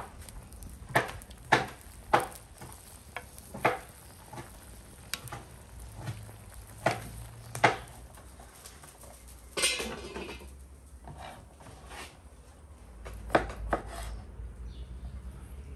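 A wooden spatula knocking and scraping against a large steel pan as beef heart pieces are stirred, with the meat sizzling in its juices; a dozen or so sharp knocks, and a longer scrape about ten seconds in. Near the end, a couple of knife strokes through a green pepper onto a wooden cutting board.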